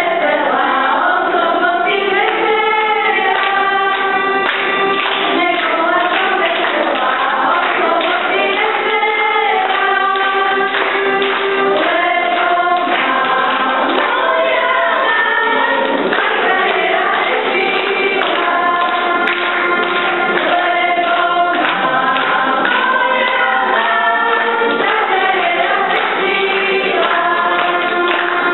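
A children's choir singing a Slovak folk song, one continuous sung melody.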